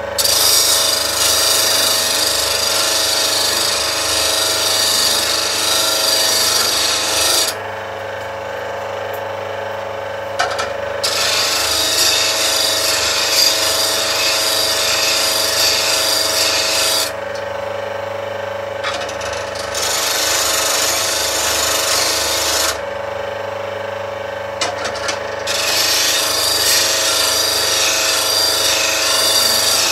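Axminster Trade slow-speed bench grinder running with a steady hum while a skew chisel held in a jig is sharpened on its wheel. Four passes of loud, rasping steel-on-wheel grinding, each a few seconds long, are separated by short gaps where only the motor hum is heard.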